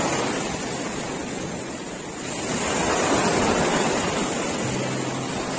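Sea surf washing in at the water's edge, a steady rush that swells as a wave surges up about halfway through and then eases, with some wind on the microphone.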